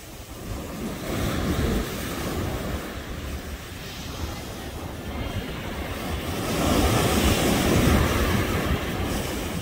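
Ocean surf washing onto a beach, with wind buffeting the microphone. A wave breaks louder about seven seconds in.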